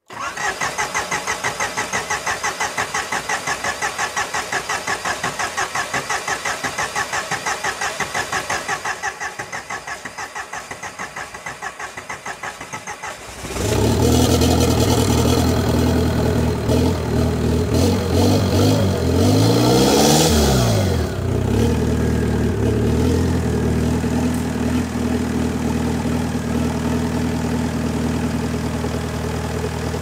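VW ALH 1.9 TDI four-cylinder turbo diesel cranked over by the starter for a long stretch, the cranking slowing and weakening partway through. About 13 seconds in it catches and runs, revs up and back down once, then settles to a steady idle. The engine had sucked its fuel system dry, and it restarts once the pressurized fuel tank pushes fuel through.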